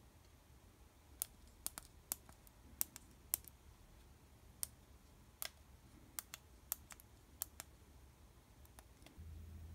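Tactile push-button switches on a small DIY keypad being pressed one after another, giving about eighteen sharp, short clicks at an uneven typing pace. A steady low hum starts abruptly near the end.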